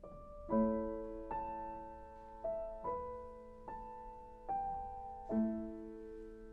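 Background music: a slow, gentle piano melody, notes struck roughly one a second and left to ring.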